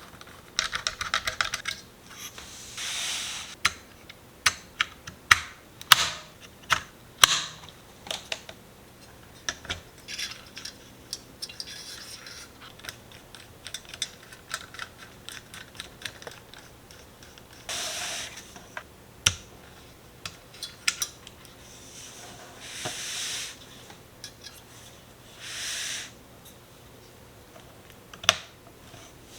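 Computer parts being handled and fitted during a small-form-factor PC build: irregular sharp clicks and taps of plastic and metal, with a few short swishing rustles.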